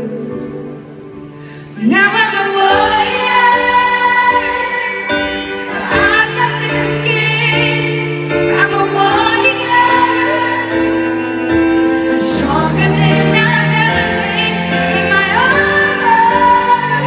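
A woman singing a ballad live, accompanying herself on grand piano. Soft piano at first, then the voice comes in just under two seconds in with a rising note and carries on in long held lines with vibrato over the piano chords.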